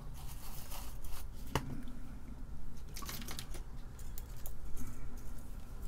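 Soldering iron tip being wiped in a brass-wool tip cleaner and handled at the bench: scratchy rustling with a few sharp clicks, over a low steady hum.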